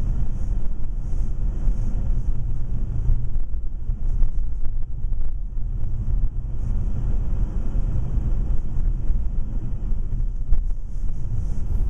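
Steady, unsettled low rumble of outdoor noise on the camera's microphone, with no distinct events.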